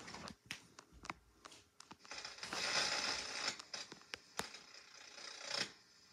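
VCR's tape mechanism clicking, with a stretch of whirring hiss, as the VHS cassette is threaded and starts to play.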